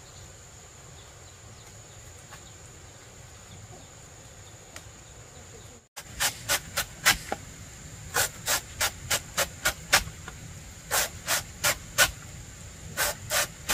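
Large knife chopping through a banana stem, cutting it into thin rounds: sharp chops in quick runs of about four a second, starting about six seconds in. Before the chopping there is only a steady high tone over quiet outdoor background.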